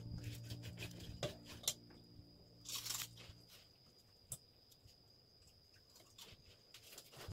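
Kitchen knife scraping and cutting the shells and skins off boiled Japanese chestnuts: small crackles, scrapes and clicks of shell, with a louder rasping scrape about three seconds in. Background music fades out over the first few seconds.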